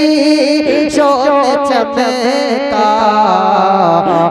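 A man singing a naat into a microphone, drawing out long notes with ornamented, wavering pitch.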